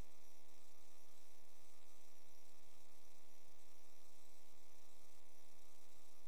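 Steady electrical buzzing hum with hiss over it, picked up by the sewer inspection camera's recording electronics.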